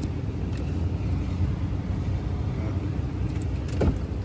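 Car engine idling, heard from inside the cabin as a steady low rumble, with a few short clicks near the end.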